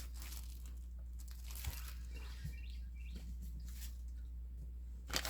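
Faint rustling and a few light clicks of hands handling packaging and a small zippered tool bag, over a steady low hum.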